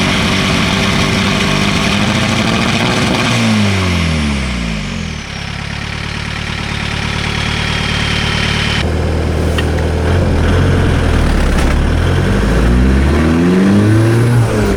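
VW Golf's 1.9 TDI ALH turbodiesel engine running. The revs drop steeply about four seconds in, stay low for a while, then climb again near the end. The owner's complaint is misfiring at certain revs under light or no load.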